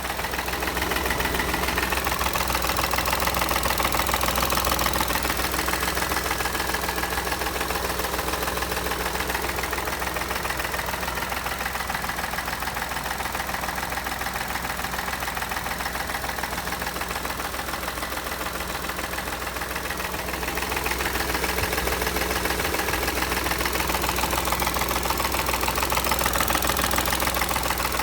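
Car engine running at idle, making an abnormal engine noise. It grows louder for several seconds near the start, eases off, and grows louder again about two-thirds of the way through.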